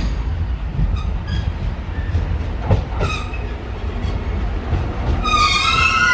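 KiHa E130-series diesel railcar pulling into the platform: low rumble of the engine and wheels, with a few clicks over rail joints. From about five seconds in, a high, multi-toned squeal rises as it brakes.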